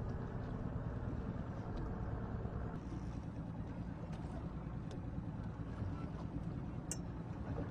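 Steady low rumble of a boat's engine on open water, with some wind on the microphone; the sound changes slightly about three seconds in.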